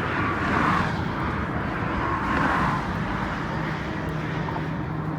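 Steady vehicle noise, a rumble that swells twice in the first three seconds and then settles into a steady hum.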